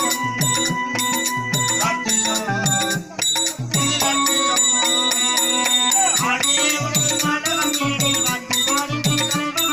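Live Tamil folk-drama music: a harmonium holding chords over a double-headed hand drum playing a steady rhythm, with small hand cymbals jingling. A voice sings for a few seconds in the middle.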